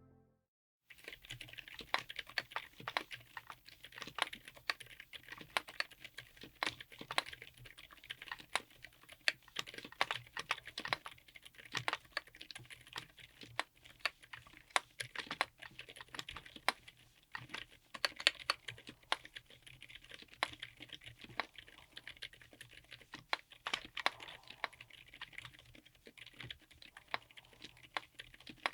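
Typing on a DZ60 mechanical keyboard fitted with Redragon A120 Stars silent tactile switches: a steady run of quick, irregular keystrokes that starts about a second in.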